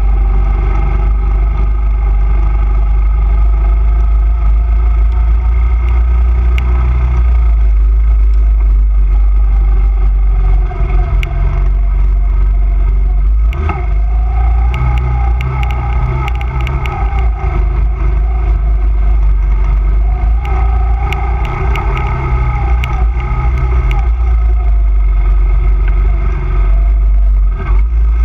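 Honda 250cc quad's single-cylinder engine running as it is ridden, the pitch rising and falling with the throttle, under heavy wind rumble on the microphone. Scattered clatters and one sharp knock about halfway through come from the quad crossing rough ground.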